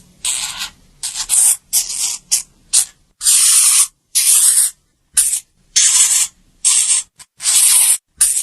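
Hamster sound: an irregular run of about a dozen short hissy noise bursts, some a fraction of a second and some nearly a second long.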